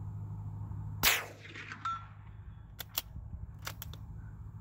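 A suppressed .22 LR rifle fires once about a second in, a short sharp crack. Just under a second later comes a faint ringing ping from the distant steel target being hit. Then two pairs of metallic clicks as the bolt is worked to chamber the next round.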